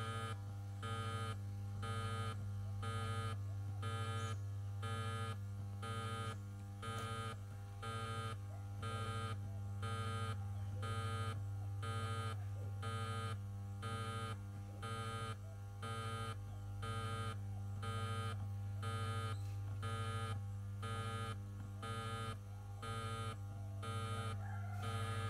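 Woofer amplifier fitted with a USB Bluetooth decoder board, putting out a steady low hum through its speakers, with a higher buzz that pulses on and off about three times every two seconds. This is the noise the Bluetooth card brings into the amplifier while it waits to pair.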